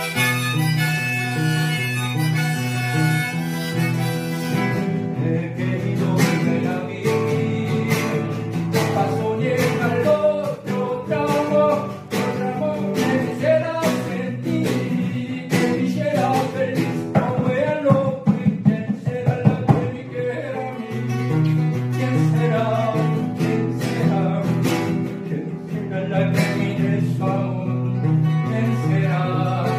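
Acoustic guitar strummed in a steady rhythm, with a harmonica on a neck rack playing the melody over it for the first few seconds. A man's singing voice comes in over the guitar later on, with a run of hard strums partway through.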